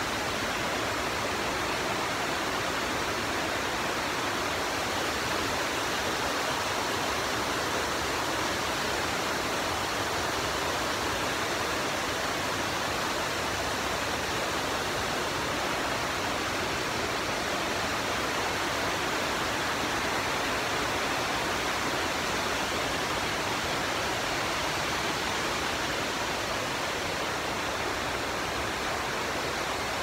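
Bousra Waterfall's water falling and rushing over rocks: a steady, even roar of white water with no break.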